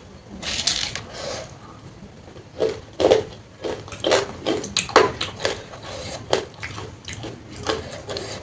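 Close-miked eating of panta bhat (water-soaked rice) with its sides: irregular wet smacks, chewing and crunches, with light clinks of a plate, thickest in the middle of the stretch.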